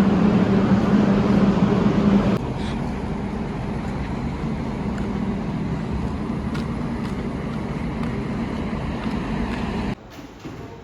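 Steady vehicle engine hum with a low drone, dropping abruptly in level about two seconds in and again near the end.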